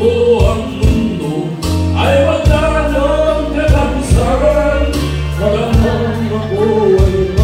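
A man and a woman singing a duet through microphones over amplified backing music with bass and drums.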